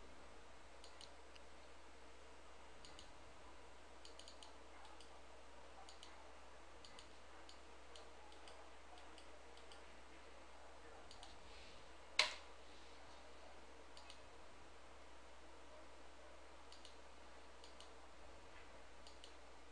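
Faint, scattered computer mouse clicks at irregular intervals, with one louder sharp click about twelve seconds in, over a faint low hum.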